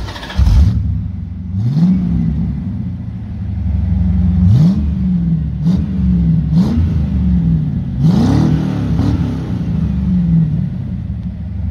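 Corvette C4's 5.7-litre V8 idling and revved in a series of quick throttle blips, each rev rising and falling back to idle, heard at the quad exhaust tailpipes. There is a loud burst of engine noise about half a second in.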